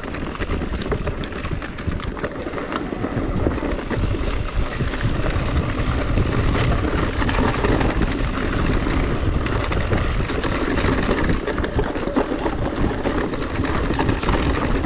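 Mountain bike descending a dirt trail: wind rushing over the camera microphone, with tyres on dirt and gravel and the frame and chain rattling in quick clicks and knocks. The noise builds over the first few seconds as speed picks up, then holds steady.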